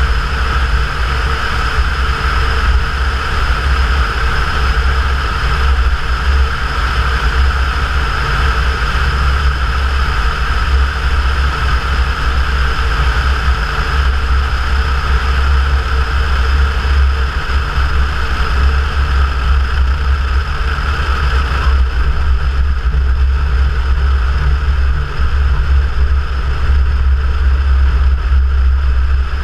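Cessna 172's piston engine and propeller running with a steady, unbroken drone in flight, the higher tones easing slightly about three-quarters of the way through.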